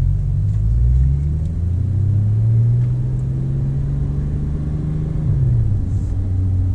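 Porsche 911 Turbo S twin-turbo flat-six engine running at low speed, heard from inside the cabin. Its note dips near the start, rises about one to two seconds in and holds, then drops about five and a half seconds in.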